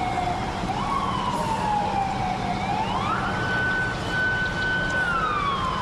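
Emergency-vehicle siren wailing in slow falls and rises of pitch. About three seconds in it climbs to a high note and holds it for nearly two seconds, then falls again near the end, over a steady low rumble.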